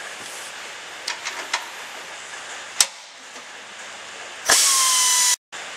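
A few light metal clicks, then a pneumatic ratchet runs for about a second with a loud hiss of air and stops suddenly, turning out one of the 16 mm bolts that join the transmission bell housing to the engine.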